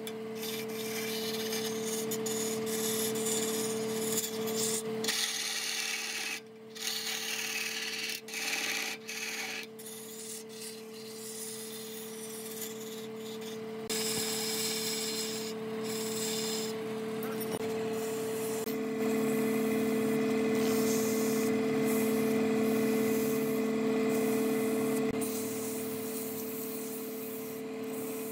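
Wood being sanded with a power tool: a steady electric motor hum under a rasping hiss that breaks off several times in the first ten seconds. The hum grows louder a little past halfway.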